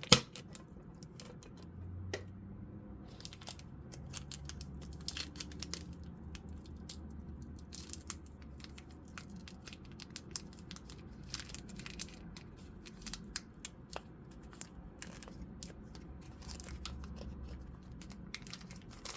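Pokémon TCG booster pack's foil wrapper being crinkled and torn open, with scattered crackles and small clicks of handling. A sharp click comes right at the start.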